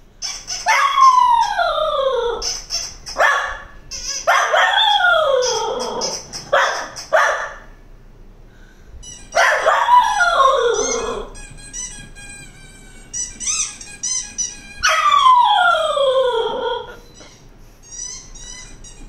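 English cocker spaniel howling in four long falling notes, with short high squeaks between them from the squeaky toy sound it is reacting to.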